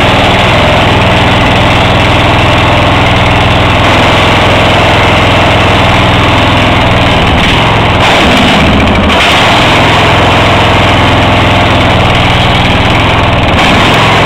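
Murray riding tractor's swapped-in 16.5-horsepower engine running steadily at a loud, even note, which wavers briefly about eight seconds in.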